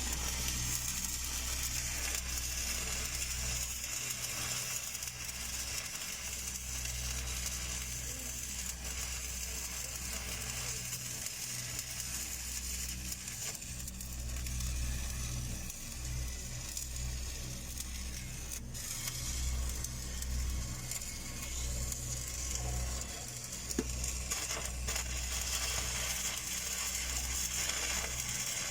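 Stick (SMAW) welding arc crackling and sizzling steadily as a downhill pass is run on large-diameter steel pipe, with a low hum that comes and goes.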